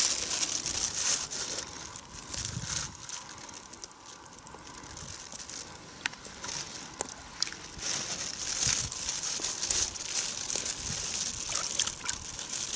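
Plastic bag of caught fish crinkling on and off, with scattered sharp clicks.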